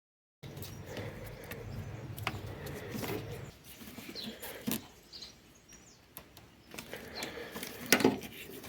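Mechanic's hand-tool work in an engine bay: scattered clicks and small metal knocks, with one loud sharp clank about eight seconds in, while faint bird chirps come and go in the background.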